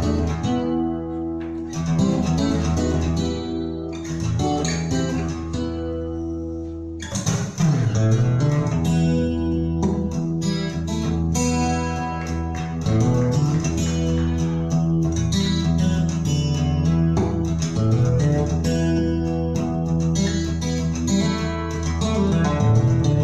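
Guitar-led song with a bass line, played through an NAD 310 amplifier and Pure Sound PS204 loudspeakers. The music gets fuller and louder about seven seconds in.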